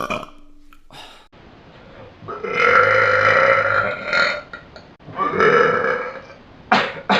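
A man belching loudly: a long drawn-out burp of about two seconds, a shorter one of about a second, then two short sharp burps near the end.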